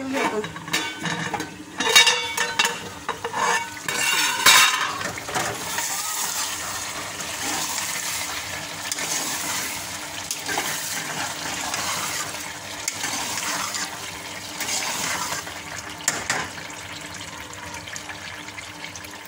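A metal ladle knocking and scraping against a metal cooking pot, with clatter in the first few seconds, as potato and aubergine curry is stirred. After that, a steady sizzle of the vegetables frying in ghee, with occasional scrapes of the ladle.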